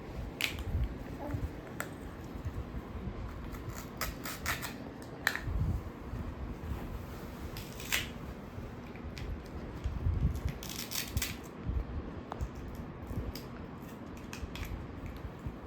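A toy fruit being cut apart with a toy knife: scattered light clicks and knocks of plastic pieces, with a few short rasping scrapes.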